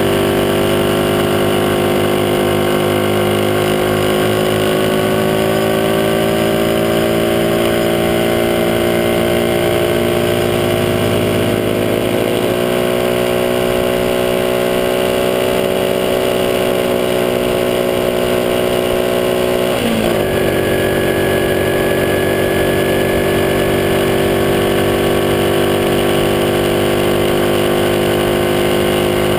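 Small motorcycle engine running steadily at cruising speed, heard close up from a camera mounted on the bike. Its pitch drifts slowly, then dips sharply for a moment about twenty seconds in, like a gear change.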